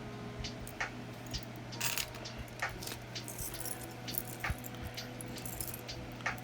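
Small metal jewelry pieces (brooches and charms) clinking and jingling as they are picked through and handled, as irregular light taps over a steady low hum.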